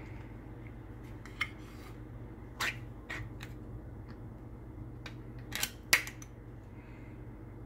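Thin metal lid of a sardine tin being peeled back by its pull tab: a few small metallic clicks and scrapes, the loudest pair near the end, over a low steady hum.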